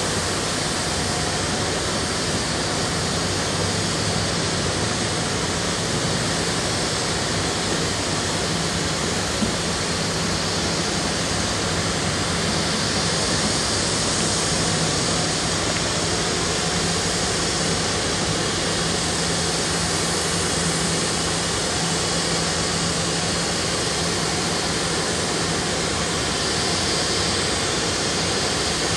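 Steady industrial roar of a paper mill, an even rushing noise with a low, constant machine hum underneath.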